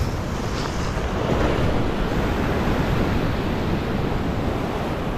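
Ocean swell surging and washing over a rock ledge, a steady wash of surf, with wind rumbling on the microphone.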